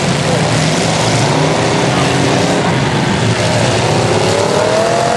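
Engines of several demolition derby cars running at once under a steady din, with one engine revving up in the second half.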